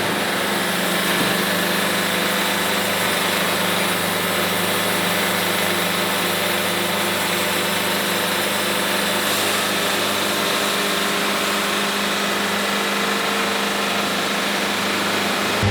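Wood-Mizer LT70 Super Wide sawmill running steadily, a constant machine hum under a high hiss.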